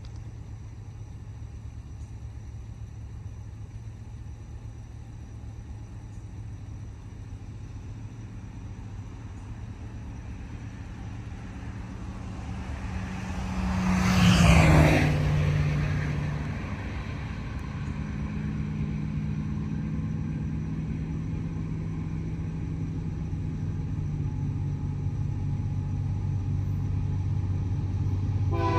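Steady low engine rumble. About halfway through, a passing road vehicle swells loudly and fades with a falling pitch. A deeper drone then builds slowly toward the end, typical of approaching diesel locomotives.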